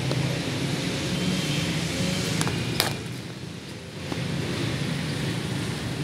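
A single sharp crack about halfway through, a cricket bat striking the ball in net practice, with a couple of faint ticks just before it. A steady low hum of background noise runs underneath.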